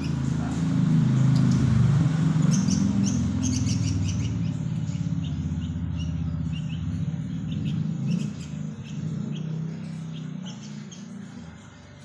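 Sooty-headed bulbul giving short, high chirps scattered through, over a loud low rumble that swells in the first two seconds and slowly fades.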